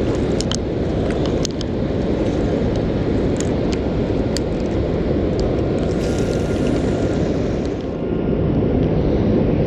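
Steady low rushing of water pouring over a river spillway, with a few light clicks in the first few seconds.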